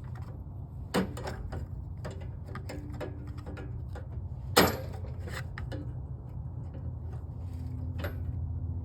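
Scattered small metal clicks and taps of pliers working a cotter pin on a snowblower's linkage, with one sharp click near the middle standing out, over a steady low hum.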